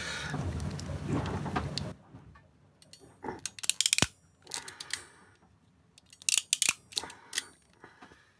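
Ratchet crimping tool clicking in several quick bursts as it squeezes a heat-shrink butt connector onto the wires. About two seconds of rustling from the wires being handled come first.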